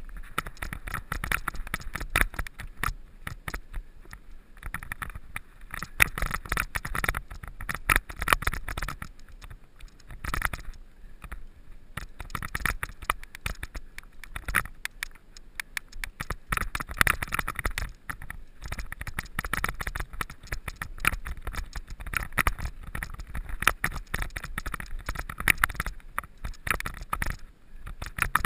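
Mountain bike ridden fast over rough, stony ground: tyres crunching on gravel and the bike rattling in dense, irregular clicks and knocks, over a steady low rumble.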